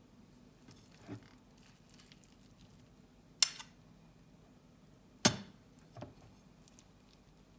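A few sharp clicks and knocks of small hard objects being handled, over quiet room tone. There are two loud ones, about three and a half and a little over five seconds in, and softer ones near the start and about six seconds in.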